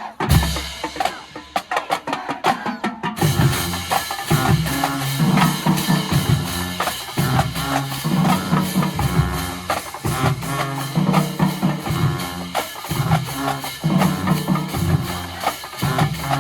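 Marching band playing: drums alone for about the first three seconds, then the full band comes in, with low brass on a repeating bass line under the drumline.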